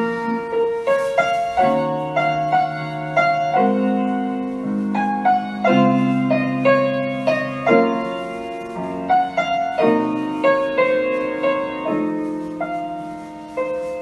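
Acoustic guitar played fingerstyle: a slow film melody picked over held bass notes, with the bass changing about every two seconds.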